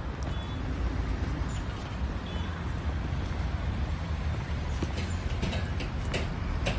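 Steady low rumble of road traffic, with a few sharp clicks in the last couple of seconds.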